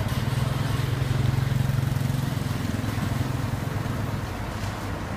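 Truck-mounted crane's diesel engine running under load, a steady low drone that is strongest for the first few seconds and then eases off a little.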